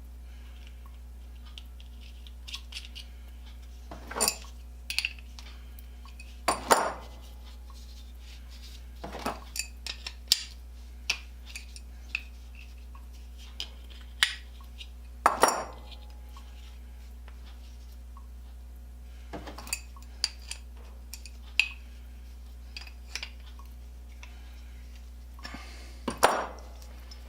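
Metal parts of a hand-crank bench grinder clinking and clanking as they are handled and set down, with irregular light clicks and a few louder knocks spread through, as the crank handle is worked on.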